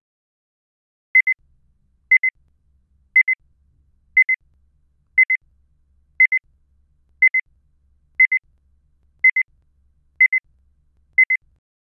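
Electronic beeps: a short double pip at one high pitch, repeated evenly about once a second, eleven times.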